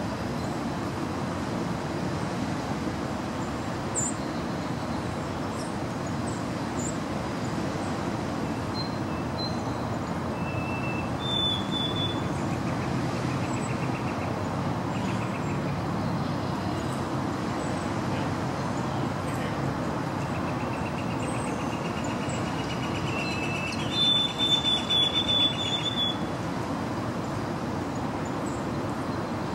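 Male white-throated sparrow singing twice, about 11 and about 23 seconds in. Each song is a clear, pure whistle that steps from a lower note up to a higher held note; in the second, longer song the high note is broken into quick repeated notes. A steady background rumble runs underneath.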